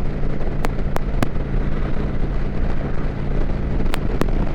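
Kawasaki Vulcan 900's V-twin engine running at a steady cruise under rushing wind noise, with sharp clicks: three in the first second and a half and two more near the end.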